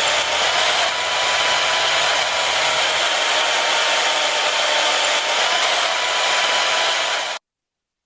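A small motor running steadily with a whirring, hair-dryer-like noise and a thin high whine. The sound cuts off abruptly near the end.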